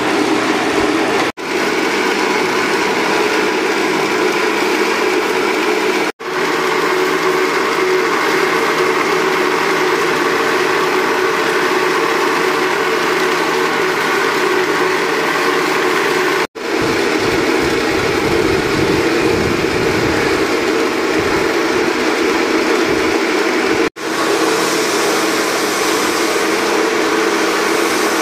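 Steady machine drone with a hiss, like a motor running, broken by four brief cuts to silence; about two-thirds of the way through a deeper rumble joins it for several seconds.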